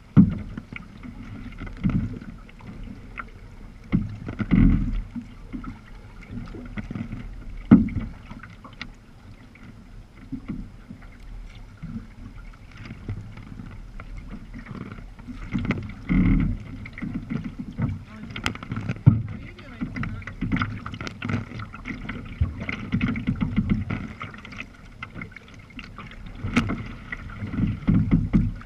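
Sea kayak on open water: water splashing and slapping against the hull in uneven surges, with paddle knocks and gusts of wind on the microphone.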